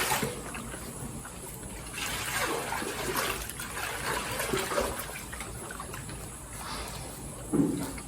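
Cows eating wet feed, with wet slurping and munching in irregular spells and a short low sound near the end.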